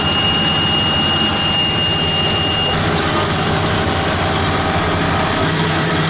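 New Holland 8160 tractor's diesel engine running steadily, heard from inside the cab, with a steady high-pitched warning beep that stops about two and a half seconds in.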